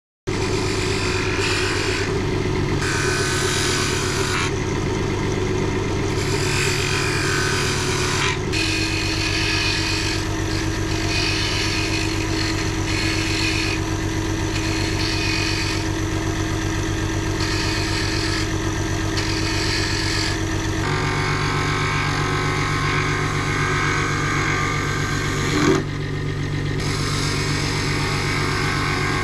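Wood lathe motor running with a steady hum while a carbide cutter shaves a spinning wooden spindle, the hiss of the cut coming and going with each pass. There is a brief louder blip near the end.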